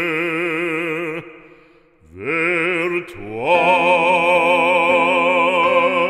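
Operatic male voice singing a French hymn with wide vibrato. One long held note breaks off about a second in, then the voice slides up into another long held note.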